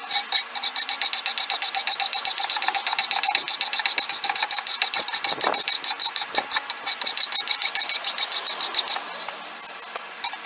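Cross-cut hand file rasping a hickory spatula handle in quick, even back-and-forth strokes, about five a second, to shape the wood down to the metal tang. The strokes break off for about a second near the end, then start again.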